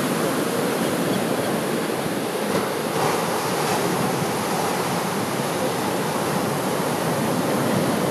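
Surf of a storm swell (ressaca) breaking on a sand beach: a continuous wash of waves.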